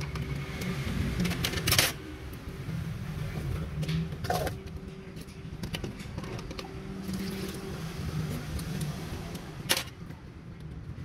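A spoon stirring and clinking in a plastic measuring jug of iced drink, with light tapping and a few sharper knocks of plastic cups being handled, over a steady low background hum.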